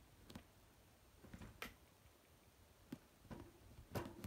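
Faint, scattered taps and clicks of a kitten pawing and clawing at a towel draped over a wire birdcage, the sharpest tap near the end.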